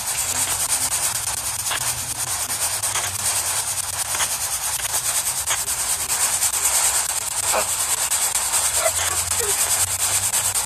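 Spirit Box radio static: a steady hiss chopped by rapid fine clicks as the box sweeps through stations, with a low hum underneath and a few brief faint blips breaking through in the second half.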